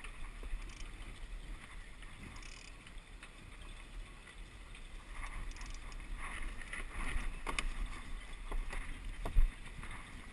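Water splashing and lapping against the hull of a Walker Bay 10 sailing dinghy under way, with wind rumbling on the microphone. A few sharp knocks come from the boat's fittings, the loudest about nine seconds in.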